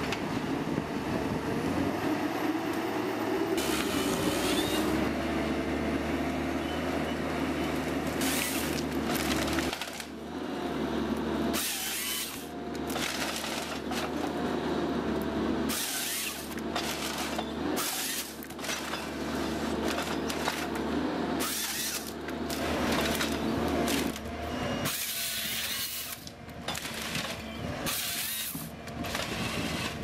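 Forestry harvester's diesel engine and hydraulics running with a steady drone, while the harvester head's chain saw cuts through spruce stems in about a dozen short loud bursts.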